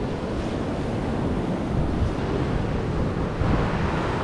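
Surf washing on the beach, with wind buffeting the microphone. The wash swells louder a little after three seconds in.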